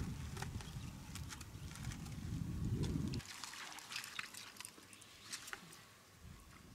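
River water splashing and trickling, with scattered sharp ticks, over a low rumble that cuts off suddenly about three seconds in.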